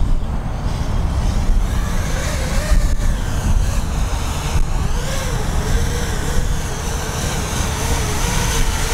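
Wind buffeting the microphone with a low rumble, over the buzz of a 5-inch FPV quadcopter's propellers whose pitch wavers up and down with the throttle. The buzz grows clearer from about two seconds in as the quad flies in close.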